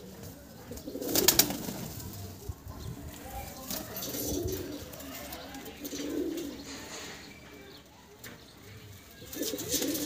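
White domestic pigeons cooing, low soft calls repeating every few seconds. A brief rustling burst about a second in.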